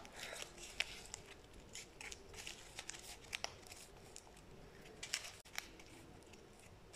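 Faint crinkling and scattered light clicks of a thin plastic cup being handled, with gloved fingers stirring the contents inside it.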